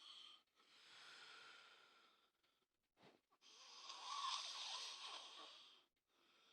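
A person snoring in their sleep: long, rasping breaths, a softer one about a second in and a louder, longer one from about halfway until near the end.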